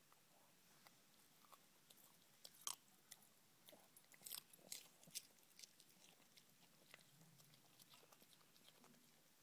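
Puppy chewing a raw baby carrot: faint, irregular crunches and bites, thickest and loudest between about two and five seconds in, then thinning out.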